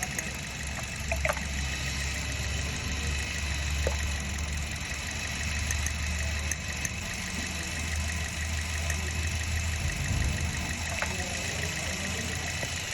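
A car engine idling, with a steady low running sound and a few faint light clicks.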